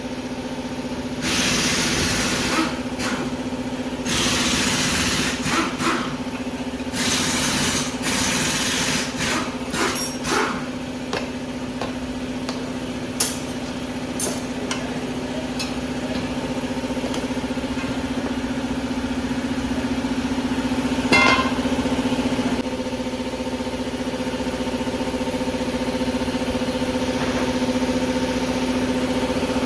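A steady machine hum, like an engine or motor running, with three loud stretches of hissing in the first nine seconds and a few sharp clicks and knocks scattered through.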